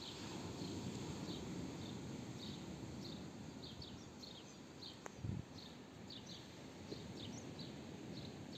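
Faint outdoor ambience: small birds chirping in short, repeated high calls over a low, steady background rumble, with a soft thump about five seconds in.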